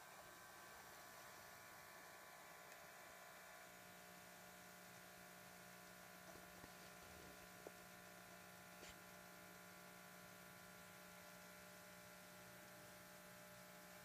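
Near silence with a faint steady electrical hum; a lower hum joins about four seconds in and holds, with a couple of tiny ticks in the middle.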